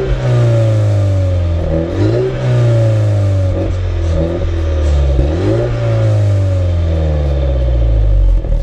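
MINI John Cooper Works' turbocharged four-cylinder engine through its John Cooper Works Pro sports exhaust, the revs rising quickly and then falling away slowly, three times over.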